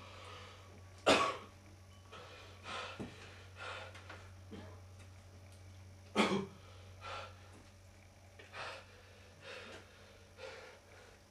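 A man breathing hard and gasping in short bursts, loudest about a second in and again about six seconds in, over a steady low hum.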